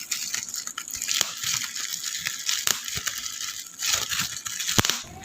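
Plastic bubble wrap being pulled off and unwrapped by hand, crinkling and rustling with scattered sharp clicks.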